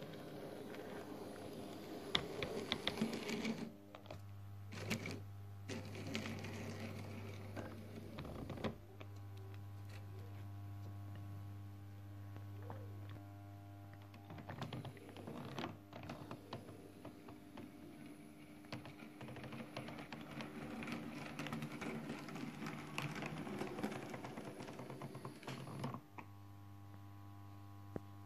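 TT-scale model diesel shunting locomotive running with a goods wagon: the faint whir and hum of its small electric motor, with irregular rattling clicks of the wheels over the rail joints and points.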